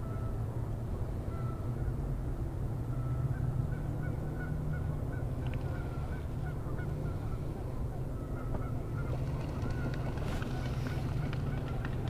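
A flock of geese honking, many short calls following one another throughout, over a steady low rumble.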